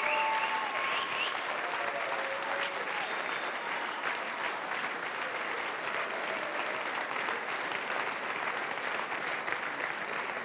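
Audience applauding steadily, with a few voices calling out in the crowd near the start.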